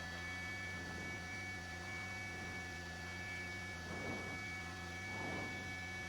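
Steady helicopter cabin hum made of several fixed pitches, as heard through the intercom feed, with two faint brief murmurs about four and five seconds in.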